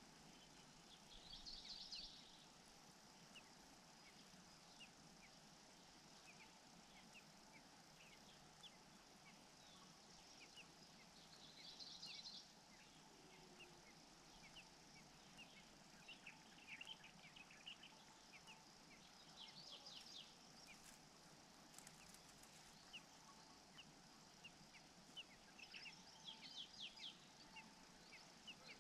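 Faint bird chirps: many short high notes scattered over a steady background hiss, with a few louder twittering bursts of about a second each.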